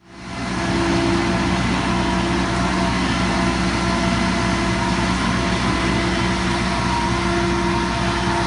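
Engine-driven machinery running steadily, a constant hum made of several held tones, fading in over the first second.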